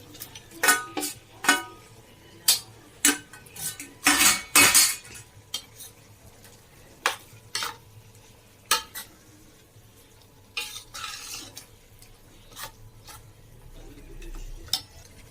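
A spoon clinking and scraping against a cooking pot as raw chicken pieces are stirred into a tomato masala. The clinks come at irregular moments, with a longer scrape about four seconds in and another near eleven seconds.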